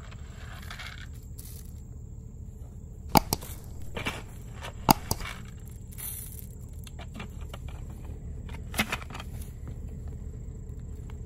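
A handful of sharp knocks and clacks as corn bait is shaken and scattered from a plastic bucket, the two loudest about three and five seconds in and a smaller one near the end, over a steady low rumble.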